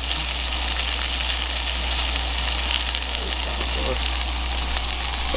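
Beef burger patties sizzling steadily as they fry in oil in a cast-iron skillet over a propane camp stove.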